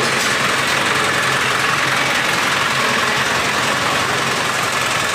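A steady engine running at an even pace, with no change in pitch.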